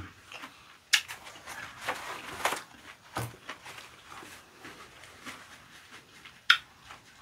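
Quiet handling noises at a meal table: a sharp click about a second in, faint rustling, a soft knock a little after three seconds and another sharp click near the end.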